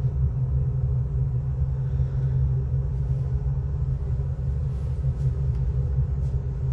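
Steady, loud low rumble with a faint hum above it, unbroken throughout; a few faint ticks come in the second half.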